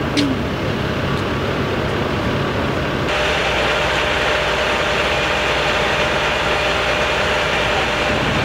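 A motor vehicle engine idling with a steady rumble. About three seconds in the sound changes abruptly, and a steady hum joins it.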